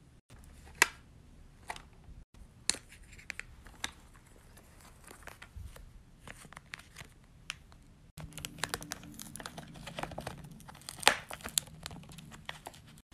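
Plastic packaging crinkling and tearing in scattered light crackles, sparse at first and busier in the second half.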